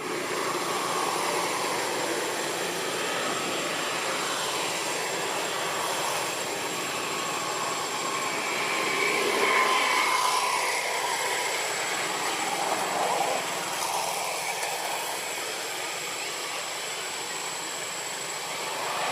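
Steady rushing background noise like traffic, with a thin steady high whine, and faint wavering calls or voices about halfway through.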